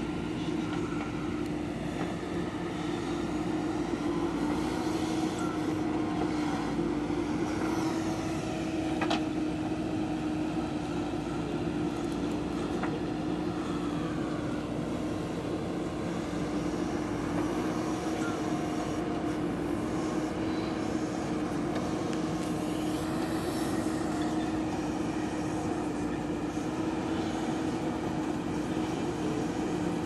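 JCB 3DX Eco backhoe loader's diesel engine running steadily under digging load, with a constant drone and its hydraulics working the bucket. A single sharp knock comes about nine seconds in.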